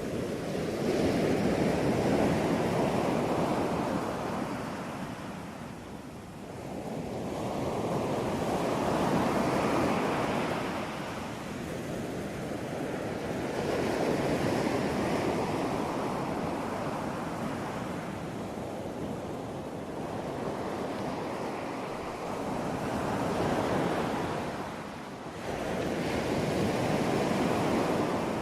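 Ocean waves washing onto a shore, a rushing surf sound that swells and ebbs about six times, every four to six seconds.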